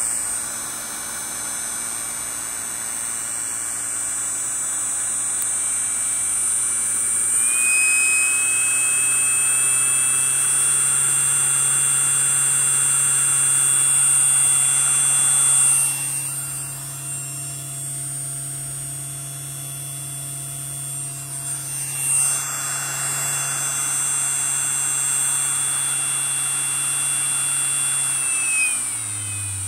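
775-size brushed DC motor running under test with a steady hum and a high whine. Its pitch steps up a little about a quarter of the way in, it goes quieter for several seconds past the middle, and near the end it winds down with falling pitch.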